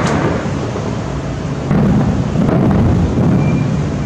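Distant fireworks bursting: a continuous rumble of overlapping booms with a few sharp cracks, swelling louder about two seconds in.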